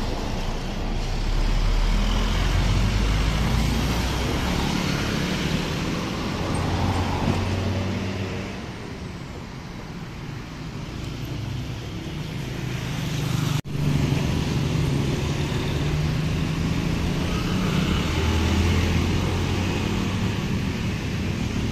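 Road traffic passing close by: cars, motorbikes and minivans driving past, their engine hum swelling and fading as each goes by, with a heavy low rumble in the first few seconds. The sound cuts out for an instant a little past halfway.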